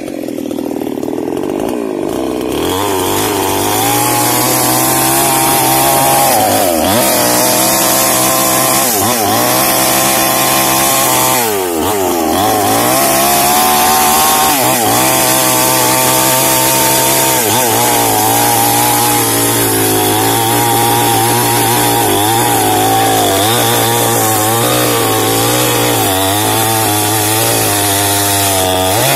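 Small New Paxton two-stroke chainsaw cutting into a jengkol tree trunk. The engine opens up to full throttle about two seconds in, then its pitch dips again and again as the chain bogs in the wood and recovers.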